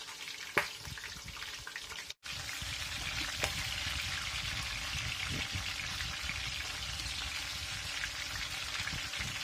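Flour-battered green chillies frying in hot oil: a steady sizzle with a few sharp crackles, broken by a brief cut about two seconds in.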